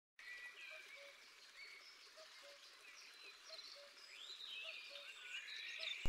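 Faint forest birdsong: several birds chirping and whistling, with a low two-note call, higher then lower, repeating about every second and a quarter.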